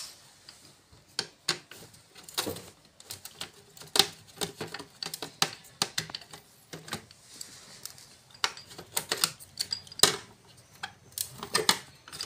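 Irregular sharp clicks, taps and light clatter of a screwdriver working on the screws and plastic housing of an air conditioner's indoor unit, as the screws are undone and the plastic parts are handled.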